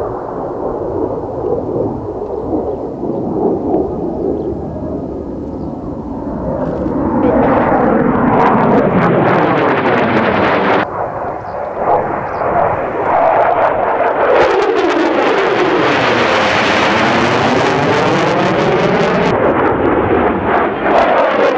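Mitsubishi F-2 fighter's single F110 turbofan engine during a display flight: a low rumble that swells into a loud, hissing jet noise about seven seconds in, breaks off abruptly near eleven seconds, then builds again to its loudest with a sweeping, phasing whoosh as the jet passes close.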